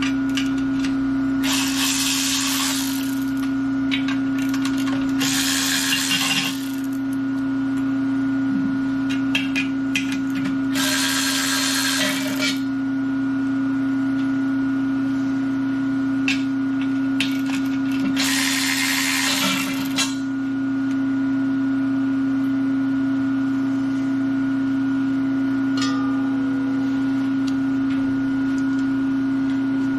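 Manual metal lathe running with a steady machine hum. Four separate bursts of hiss sound over it, each about one and a half to two seconds long.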